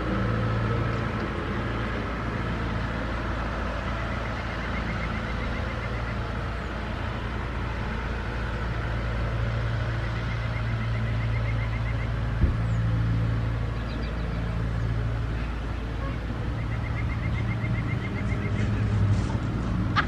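Steady low engine rumble of an idling motor vehicle. A short, rapid ticking trill repeats about every six seconds, and there is one sharp knock about twelve seconds in.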